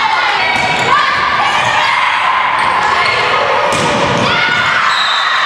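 Volleyball match sound in a gym: players and spectators shouting and calling in high voices, with the sharp smack of the ball being hit.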